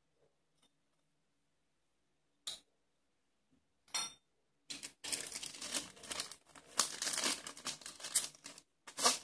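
Thin plastic bag crinkling and rustling for about four seconds as a multi-tool saw blade is unwrapped from it, with another crackle near the end. Before it, two short clinks of metal oscillating-tool blades being set down on a table.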